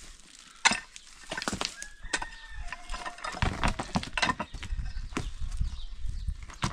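Pickaxe striking stony ground: a sharp clank about half a second in, then repeated knocks of the blade on rocks and gravel with stones scraping and shifting.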